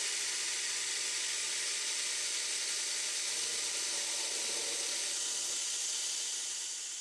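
9x20 benchtop CNC metal lathe running a cut with a mini cutoff/grooving tool: a steady hiss of spindle and cutting noise with several steady motor tones, fading out near the end.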